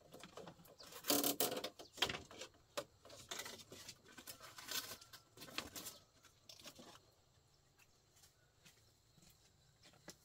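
Woven bamboo window shutter being pushed up and propped open with a stick: rustling, scraping and a few knocks of bamboo, loudest about a second in, then quiet for the last few seconds.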